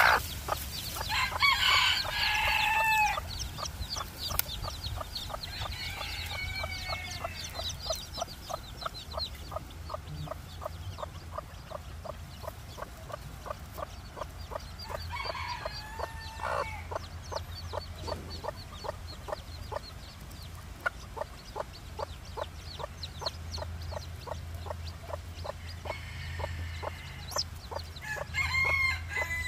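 Bantam chicks peeping steadily, about three short high peeps a second, while a grown chicken gives louder, longer calls several times, the first about a second and a half in and the last near the end.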